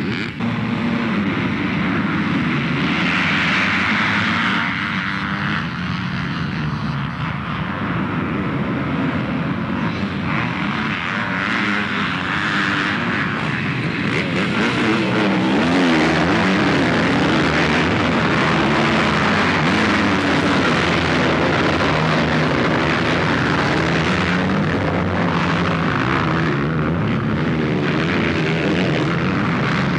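A pack of motocross dirt bikes at full throttle, several engines running together, their pitch rising and falling as the riders shift and work the throttle through the race start and the first corners.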